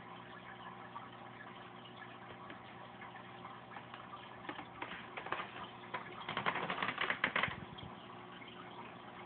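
Home aquarium running: a steady hum from its pump with water trickling and bubbling. In the second half comes a stretch of rapid clicking, loudest for about a second and a half.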